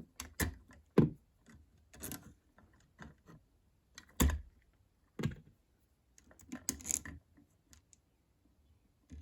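Irregular clicks and taps from handling electrical wires, wire nuts and an old wall switch in a switch box, the loudest a little after four seconds in.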